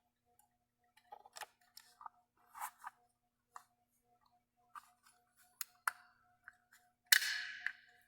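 Small clicks and scrapes of a metal pry tool working at a plug-in charger's plastic parts, with a louder scraping snap about seven seconds in as the part comes off.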